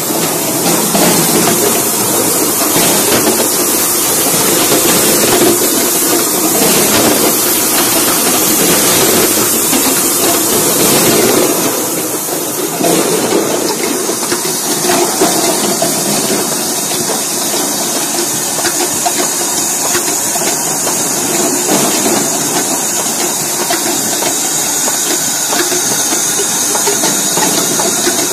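Palace bottle unscrambler running: a continuous machine noise with a steady hiss and a dense, constant rattle of empty plastic bottles clattering through the machine and onto the conveyor.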